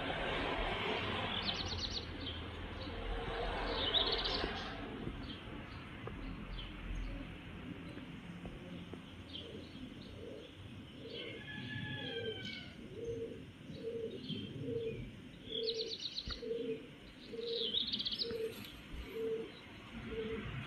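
Birds calling: a few clusters of short high chirps, a couple of falling whistles, and from about nine seconds in a steady run of low notes, about two a second. A broad rushing noise fades out over the first few seconds.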